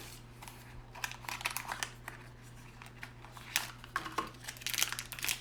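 Crinkly pin packaging being handled and torn open, with irregular sharp crackles that grow denser and louder near the end, as the next blind-pack pin is unwrapped. A low steady hum sits under it.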